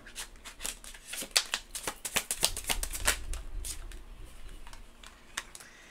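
A tarot deck being shuffled by hand: a quick run of crisp card clicks and flutters, busiest for the first three seconds, then thinning out and fading away.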